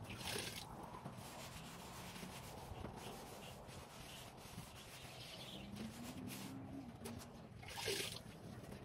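Faint rubbing strokes against a surface, with two short hisses, one at the start and one near the end.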